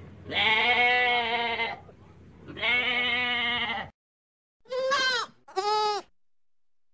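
Goats bleating: two long, wavering bleats, then after a short break two quick, higher-pitched bleats.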